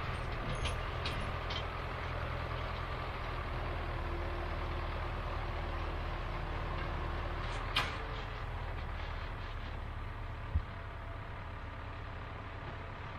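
Tractor diesel engine running steadily under load while it drives a SWAN AGRO RT200 rotary tiller through the soil. There is a sharp click about eight seconds in and a short knock a couple of seconds later.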